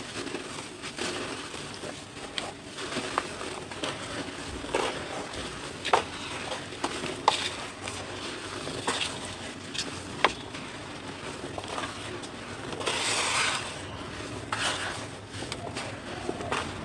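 Dry, crumbly cement chunks being crushed and broken by hand in a basin: a gritty crumbling rustle with many sharp cracks as lumps snap apart. About three-quarters of the way through comes a louder hissing rush of crumbs and powder falling.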